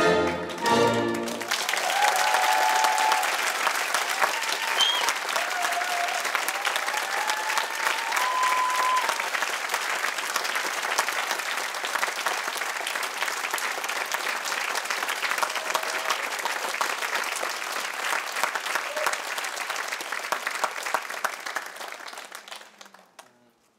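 An orchestra finishes on a final chord, then an audience applauds, with a few voices calling out from the crowd. The applause fades out near the end.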